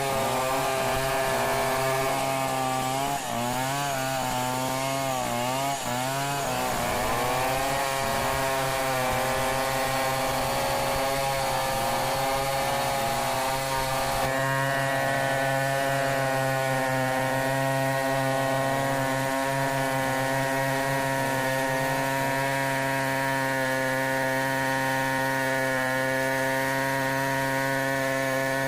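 Stihl 070 chainsaw running at high revs while cutting through a log lengthwise, milling it freehand into lumber. Its engine pitch dips and recovers several times a few seconds in as the chain bites, then holds steady in the cut.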